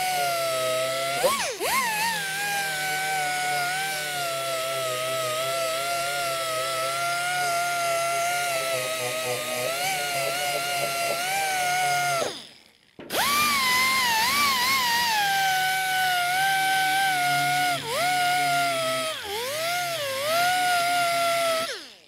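A 2-inch orbital sander with a 120-grit pad whines steadily as it sands down a sharp bead peak on a sheet-metal patch panel. It stops briefly about halfway through and starts again. Its pitch dips and rises a few times as the progressive trigger is eased and squeezed, and it stops near the end.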